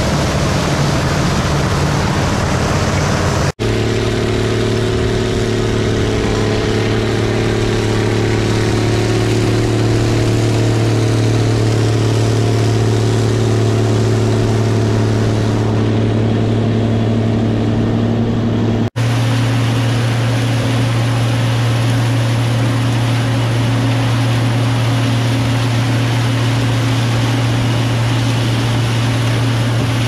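Gleaner combines running in the field: a steady engine drone under the noise of crop going through the machine. The sound breaks off and changes abruptly twice, about three and a half seconds in and about nineteen seconds in.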